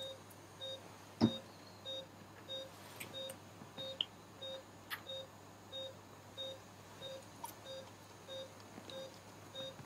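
Patient monitor's pulse-oximeter beep sounding steadily about twice a second, each beep short and even, with the pulse-tracking rhythm of the saturation probe. A sharp knock about a second in is the loudest sound, with a few fainter clicks later.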